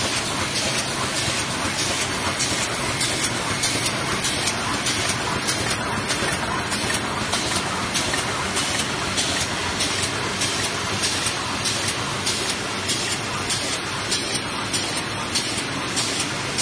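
Eraser packing machine running, wrapping erasers in paper sleeves and BOPP film: a steady mechanical clatter of quick, repeated clicks over a constant hiss.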